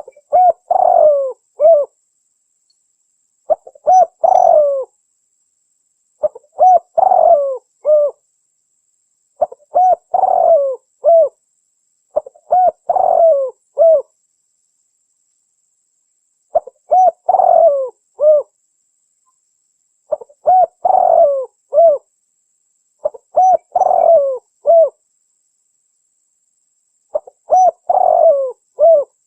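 Spotted dove cooing: a phrase of several short, bending coo notes, repeated nine times with a gap of a second or two between phrases and clean silence in the gaps.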